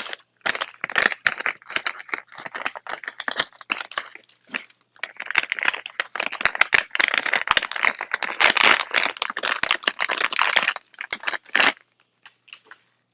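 Plastic packaging crinkling and crackling as it is cut and pulled open with scissors: a dense, irregular rustle full of sharp crackles that stops abruptly near the end.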